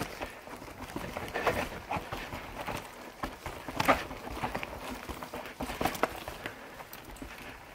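Irregular crunches and knocks, a few a second, of movement over a rough trail, with no engine or steady machine sound.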